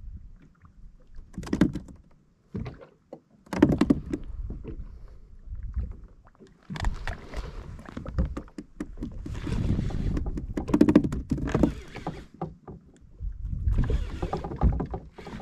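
Water lapping and slapping against the hull of a Hobie fishing kayak, with wind rumbling on the microphone. It comes in irregular swells with sharp splashy clicks and is heaviest about two-thirds of the way through.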